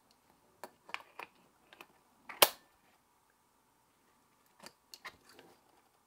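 Small clicks from an aluminium Ulanzi Claw quick-release camera clip being handled, with one sharp snap of its spring-loaded release about two and a half seconds in, and a few more light clicks near the end.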